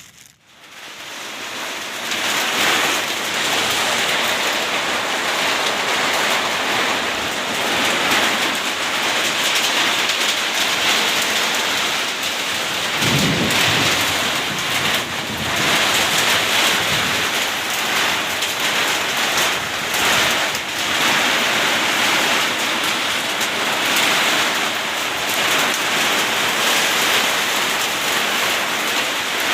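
Heavy downpour of rain and hail, building up over the first two seconds and then pouring down steadily and loud. A low rumble of thunder comes about halfway through.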